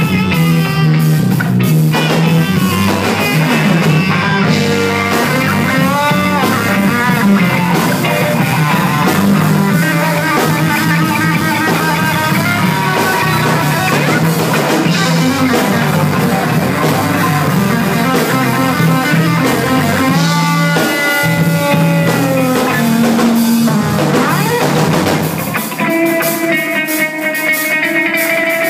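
Live rock band playing loudly: drum kit, bass and electric guitar, with saxophone lines gliding over them. Near the end the bass drops away, leaving a few held higher notes.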